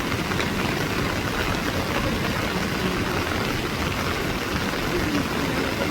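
Heavy rain falling, a steady, even rushing hiss with no let-up.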